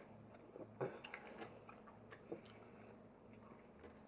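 Faint chewing with a few soft scattered clicks: people eating seafood.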